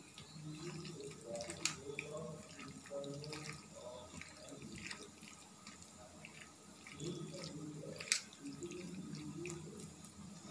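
Hands squelching and kneading chunks of boiled jackfruit and potato in a wet yogurt-and-spice marinade in a steel bowl, with two sharp clicks against the bowl.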